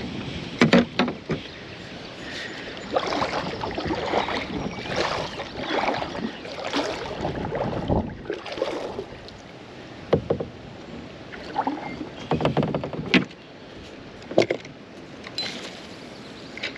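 Kayak paddling: paddle blades dipping and swishing through river water, with dripping and splashing between strokes. A few sharp knocks stand out as the loudest sounds.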